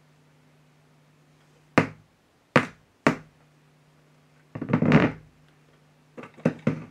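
Three sharp knocks, then a longer rough rumbling scrape and a few quick clicks, from the record player's deck and cartridge being handled, over a steady low mains hum from the powered-up set.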